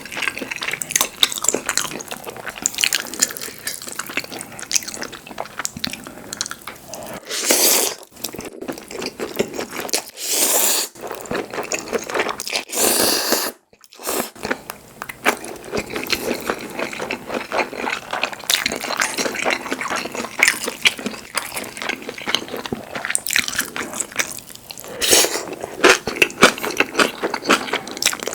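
Close-miked eating of braised pork feet (jokbal) and buckwheat noodles: wet chewing and biting, with three louder drawn-out sounds of about a second each, near 8, 10 and 13 seconds in.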